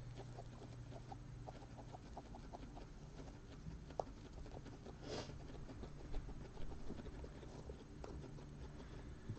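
Guinea pigs chewing hay: a faint run of rapid small crunching clicks, with a brief rustle about five seconds in.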